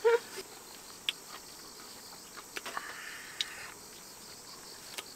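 Insects chirping steadily in an autumn field, with a few light, sharp clicks and taps scattered through.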